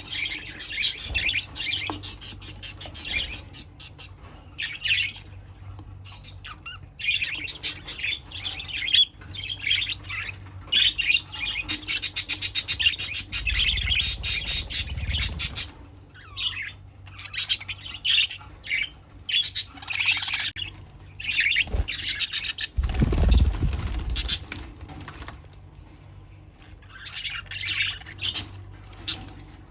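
Budgerigars chattering and chirping in a rapid, continuous stream of calls, with a couple of low thuds about halfway through and again two-thirds of the way in.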